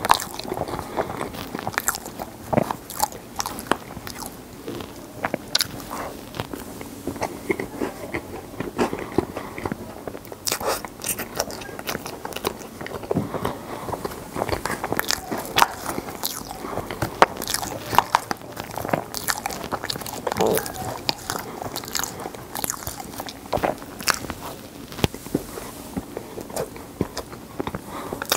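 Close-up chewing of Oreo cookies-and-cream icebox cake, with crisp crunches of cookie pieces among the wet chewing. Many irregular clicks run throughout.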